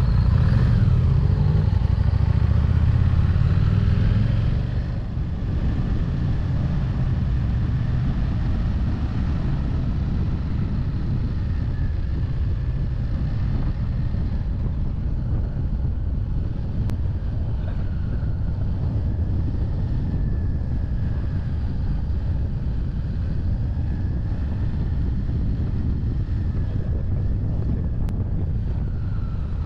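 Motorcycle engine running steadily under road and wind noise, louder for the first four seconds or so, then settling to an even level.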